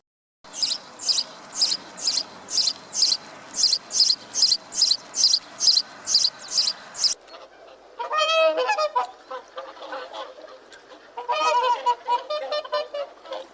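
Waterfowl calling: first a rapid series of short high-pitched calls, about two or three a second, then, after a change in the background about seven seconds in, lower repeated calls in two bouts.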